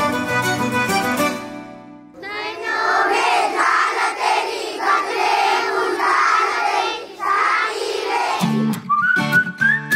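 Instrumental background music fades out, then a large group of children's voices sings or chants together for several seconds. Near the end, music with guitar and a pulsing bass comes back in.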